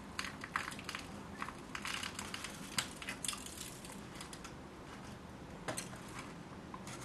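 Fingers pressing and firming potting substrate in the cells of a plastic seedling tray: a run of short, quiet crunching crackles, thickest in the first three seconds, with a couple more near the end.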